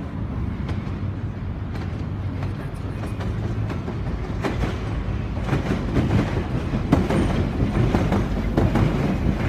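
London Underground Piccadilly line 1973 Tube Stock train approaching and running under the bridge, its rumble building about halfway through, with wheels clacking over rail joints and points.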